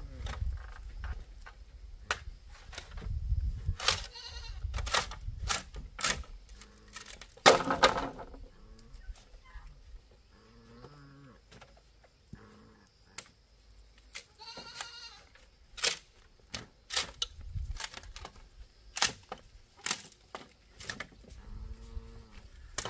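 Goats bleating several times in wavering calls, the loudest about a third of the way in, with softer, lower calls between. Short sharp knocks and clicks are scattered throughout.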